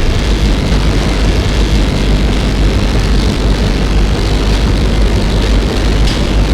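Loud, steady engine drone, heavy in the low end, like a propeller aircraft's engine running.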